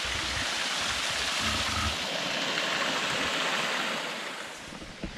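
Small waterfall pouring over a rock ledge into a pool: a steady rush of falling water that fades out near the end.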